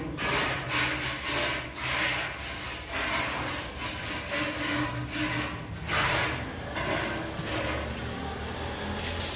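Repeated rubbing and scraping strokes on a glazed ceramic tile as a marker line is drawn along a metal straightedge laid across it.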